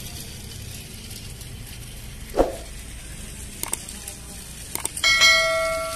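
Battery-powered toy steam train running round a plastic track with a steady whirring rattle. Near the end, two clicks and a bright bell-like ding that fades out: a subscribe-button sound effect.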